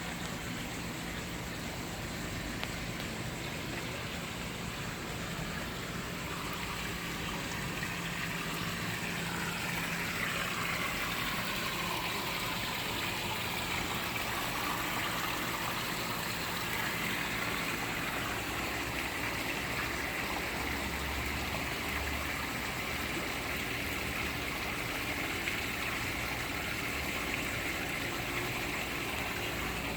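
Water running steadily out of a DIY koi pond filter, trickling and splashing without a break. A faint low hum runs through the first half and then drops away.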